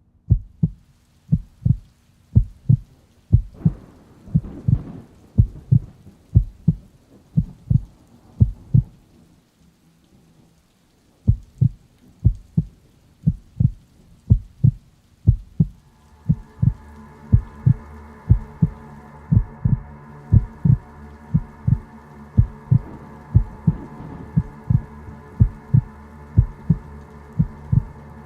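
A heartbeat sound effect: steady low paired thuds like a slow pulse, which stop for about two seconds near the middle and then resume. A little past halfway a steady droning chord comes in under the beat.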